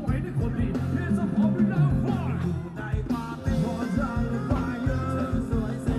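Thai ramwong dance music from a band: a steady, even beat with bass and a wavering melody line.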